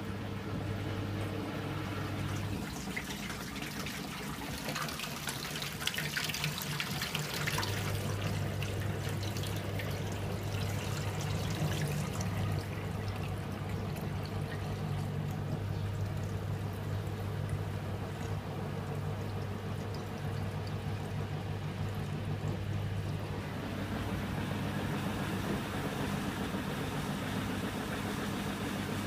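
Samsung top-load washing machine running a towels cycle: a steady low motor hum as the drum turns, with drain water pouring and trickling into a steel sink.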